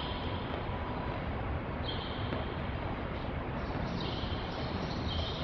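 Steady background hiss and hall noise on an old camcorder recording, with a higher-pitched hiss that comes and goes every second or two.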